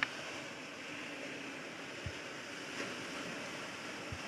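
Steady wash of ocean surf breaking on a rocky shore, with a few faint low knocks.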